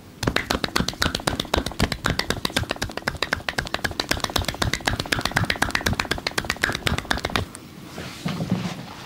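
Hands striking a body in a fast percussive massage, about nine slaps a second for some seven seconds before stopping.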